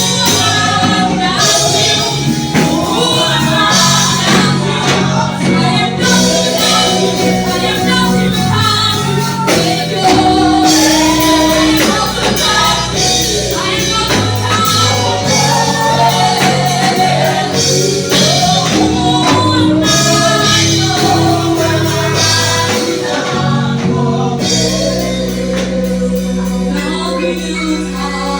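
A gospel choir singing a worship song, with male and female voices over steady held low instrumental chords.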